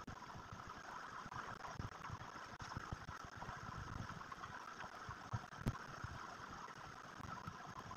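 Steady background hiss with scattered light knocks, and a sharp tap a little past halfway as chalk meets the blackboard.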